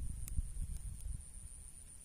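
Low, uneven rumble of handling noise on a hand-held microphone, with a few faint clicks in the first second.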